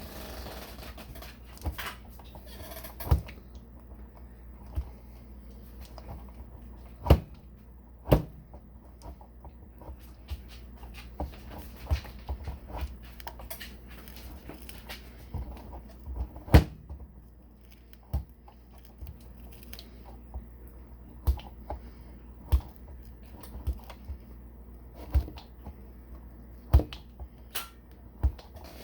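Scattered sharp clicks and knocks, one every second or two at irregular intervals, over a steady low hum.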